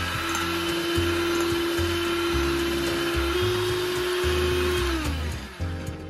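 Electric hand mixer whirring steadily as its wire beaters whisk foamy egg whites in a glass bowl; about five seconds in the motor winds down and stops.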